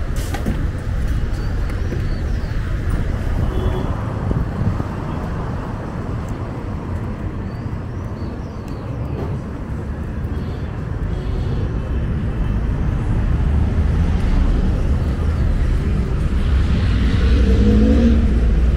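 Road traffic at a busy city intersection: a steady rumble of passing cars and buses, growing louder toward the end as an engine rises in pitch close by.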